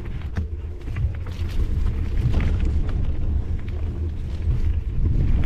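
Mountain bike rolling along a dirt and leaf-litter trail, heard through a handlebar-mounted camera: a steady deep rumble of wind and trail vibration on the microphone, with scattered small knocks and rattles from the bike.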